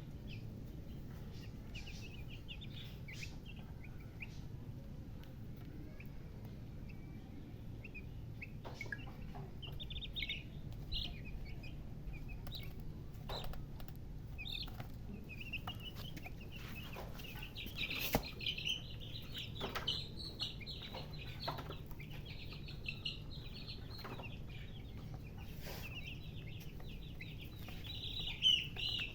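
Chickens chirping: many short, high-pitched peeps, sparse at first and coming thick and fast in the second half, with scattered sharp clicks over a steady low hum.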